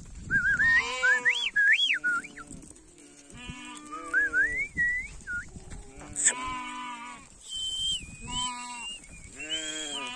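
A flock of sheep bleating again and again, several calls overlapping. Over the first half, and again near the end, a high wavering whistled tone slides up and down.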